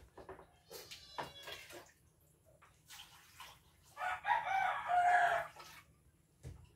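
A rooster crows once, about four seconds in, a call lasting about a second and a half. Before it there are a few faint knocks and clatters.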